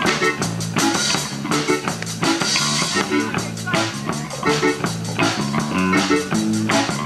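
Rock band playing live: electric guitar, bass guitar and drum kit with a steady beat and cymbal crashes.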